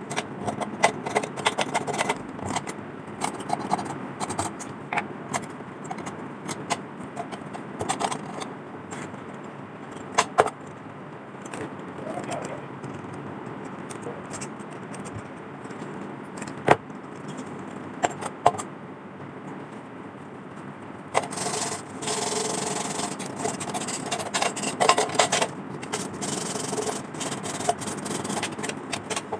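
Sandpaper rubbing rust off the lantern's metal, a continuous scratching with scattered sharp clicks and knocks. For several seconds near the end the scratching grows louder and brighter.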